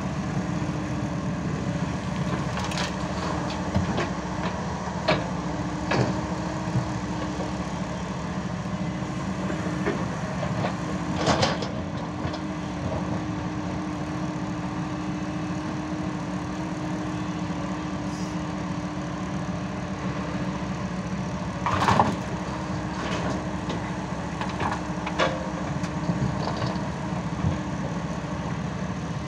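Diesel engine of a Hyundai 140 crawler excavator running steadily with a constant hum while it digs and loads earth. Scattered knocks and clatters of the bucket and falling soil come through, the loudest about 11 and 22 seconds in.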